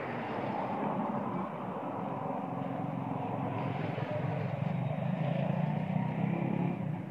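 Steady rumble of a motor vehicle engine, growing louder about five to six seconds in.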